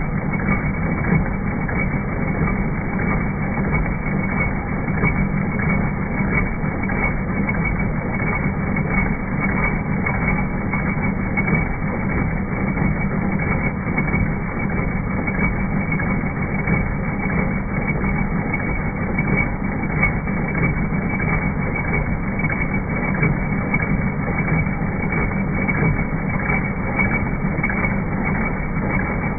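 Multi-needle embroidery machine (a BESTSEW B-3620) stitching: a steady, dense clatter of rapid needle strokes with no pauses.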